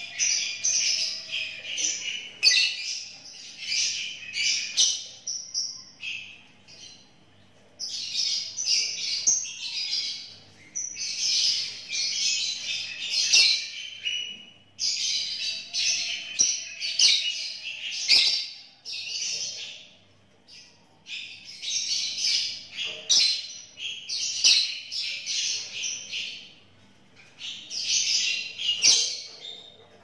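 Sooty-headed bulbul (kutilang) singing vigorously: rapid whistled and chirping phrases in bouts of a few seconds, separated by short pauses.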